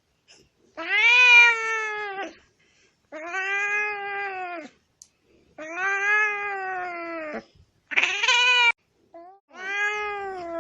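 Angry cat yowling: five long, drawn-out calls of about one to two seconds each, every one rising and then falling in pitch, with short pauses between.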